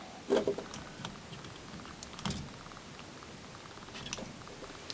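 A few soft clicks and knocks of hard plastic model-kit parts being handled and fitted together, as the missile pods are pegged onto the figure.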